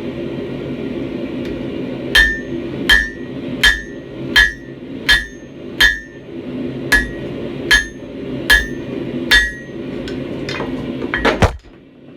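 Blacksmith's hammer striking hot steel on an anvil while forging a railroad spike: about ten ringing blows, each under a second apart, then a few lighter, quicker taps and a final louder hit. A steady low rumble runs underneath and drops away suddenly near the end.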